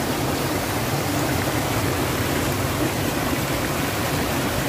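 Spring water flowing steadily out of rock, an even rushing with no breaks.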